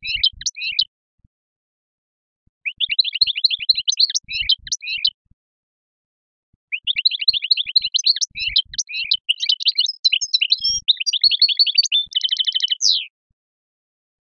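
Finch singing in three bouts of fast twittering song, the longest ending in a buzzy trill shortly before the song stops.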